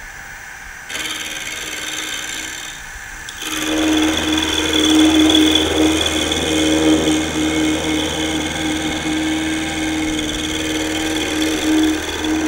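Mini milling machine running, its end mill cutting into a cast-iron casting from about three and a half seconds in, a steady machining noise with a steady hum.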